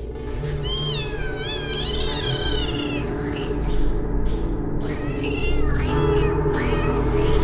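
Injured calico kitten meowing in long, wavering calls while its wound is handled, once at about a second in and again near the end, over background music.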